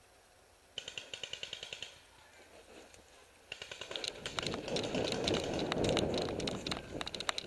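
Paintball markers firing: a rapid string of sharp pops about a second in, then more shots from about three and a half seconds over the rustle and footfalls of someone running through long grass.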